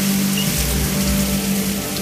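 Spray from a musical fountain's tall water jets falling back onto the pool surface, a steady rain-like splashing as the jets shut down.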